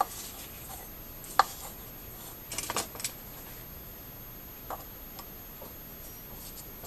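A few small clicks and taps of hand tools and small fishing-reel parts being handled on a workbench: one sharp click about one and a half seconds in and a quick cluster of clicks a little before three seconds, then faint room tone.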